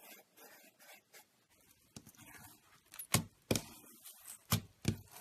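Slime being worked by hand: soft crackling at first, then several sharp, sticky pops and clicks from about three seconds in.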